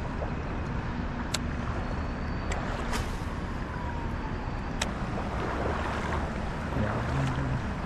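Steady rush of flowing river water and wind on the microphone, with a few sharp clicks. About three seconds in, a cast with a baitcasting reel, its spool giving a brief falling whine as the line pays out.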